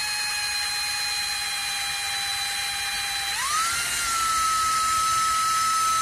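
Electric drill running in reverse with a 3/8-inch bit, boring through a rubber grommet blank: a steady motor whine that steps up in pitch about three and a half seconds in.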